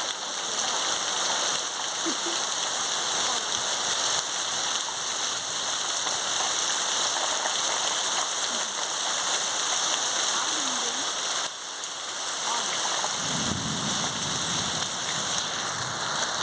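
Heavy rain falling steadily in a dense hiss, with a low rumble of thunder near the end.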